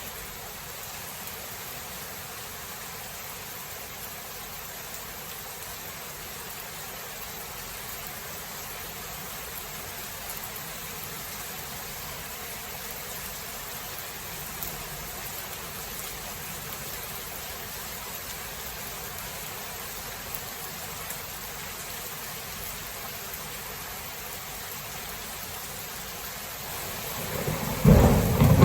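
Steady, even rain hiss from a thunderstorm. Near the end a loud clap of thunder breaks in with a deep rumble.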